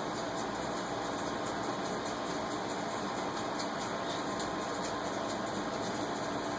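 Steady background hum and hiss with a few faint steady tones, unchanging throughout; no distinct event stands out.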